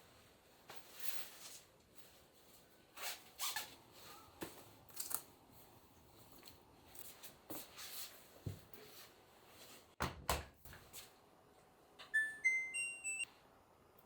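Soft kitchen handling noises: scattered rustles and light clicks, with a sharper knock about ten seconds in. Near the end, a short melody of electronic beeps steps upward.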